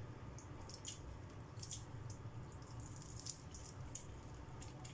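Quiet hand-eating sounds: cooked shrimp being peeled and picked apart by hand, with scattered small crackling clicks and faint chewing over a low steady room hum.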